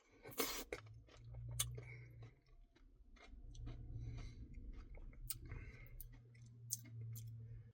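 Faint chewing of a mouthful of Dairy Queen Blizzard ice cream with cookie pieces, with scattered small clicks, under a faint low hum.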